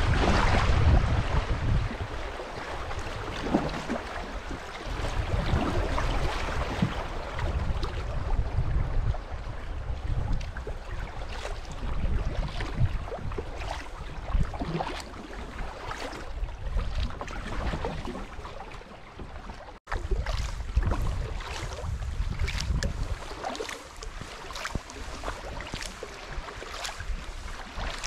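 Double-bladed kayak paddle strokes dipping and splashing, with river current rippling past the kayak's hull, loudest over the rippling stretch at the start, and wind buffeting the microphone. The sound cuts out for an instant about two-thirds of the way through.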